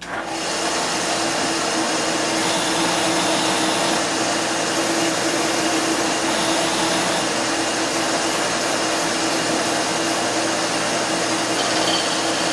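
Sakai ML-360 mini lathe switched on, its spindle motor starting suddenly and running steadily with a constant hum under a loud, even whir while the CNC-driven carriage feeds the tool through a cutting pass on aluminium tubing.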